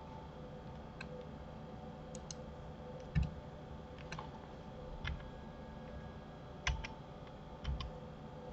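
Scattered computer mouse clicks and keyboard key presses, about a dozen at irregular intervals, a few with a duller knock, over a faint steady hum.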